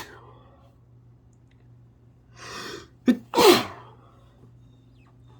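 A person sneezes: a breathy in-drawn build-up, a quick catch, then one loud sneeze about three seconds in. The tail of a previous sneeze fades out at the very start.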